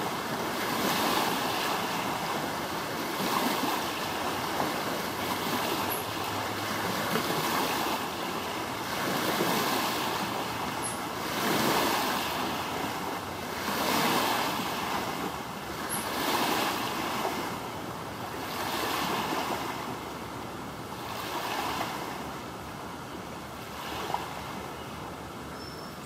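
Water waves washing and lapping, swelling and ebbing about every two seconds in a steady hiss of surf, a little softer near the end.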